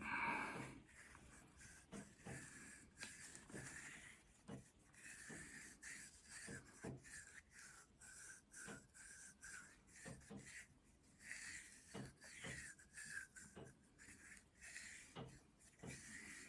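Faint, repeated rubbing and scraping as activated charcoal paste is worked around the inside of a briar pipe bowl to coat it.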